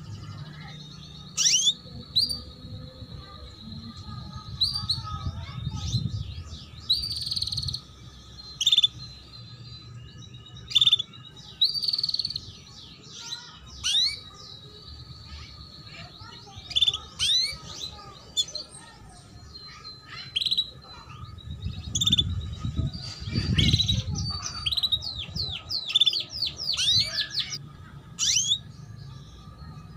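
Female canary calling 'cuit cuit': short, sharp, sweeping chirps at irregular intervals, with a quick run of them near the end. Twice a low rumble swells underneath, about a fifth of the way in and again about three quarters in.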